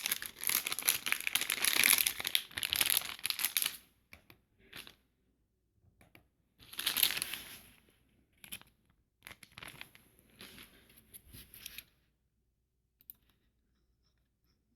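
Crinkling and rustling of material being crumpled and handled: a dense stretch for about the first four seconds, then shorter separate rustles, the loudest about seven seconds in.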